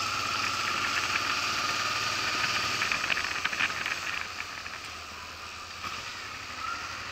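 Honda Transalp motorcycle engine running at low speed, with wind hiss on the camera mic; the sound quietens about four seconds in as the bike turns a corner.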